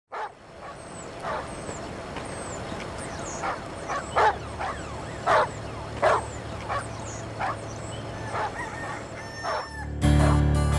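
Birds calling: a series of short, loud calls about once a second, with thin high falling chirps above them and a low steady drone underneath. Near the end, plucked-string music comes in abruptly and is the loudest sound.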